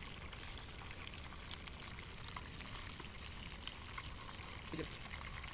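Quail frying in oil in a pan: a steady sizzle with scattered small crackles and pops.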